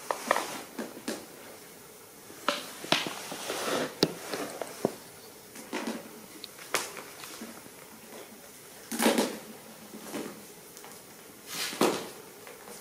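Irregular clicks, knocks and short scrapes of a hard plastic toy grasshopper being pawed and nudged about on a tiled floor by a kitten, the loudest knocks about nine seconds in and again near the end.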